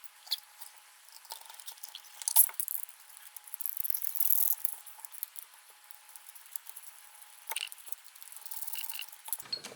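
Small screwdriver driving two small bolts to fix a rack piece in an animatronic eye mechanism: scattered light clicks, taps and short scraping turns, with parts being handled.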